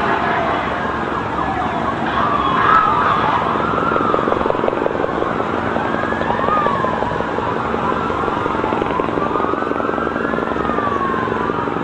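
Several emergency-vehicle sirens wailing at once over steady city noise, their pitch sweeping slowly up and down.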